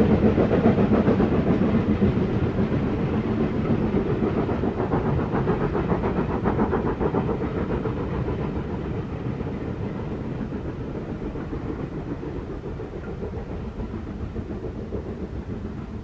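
Steam locomotive's rapid exhaust beats, gradually fading as the train draws away.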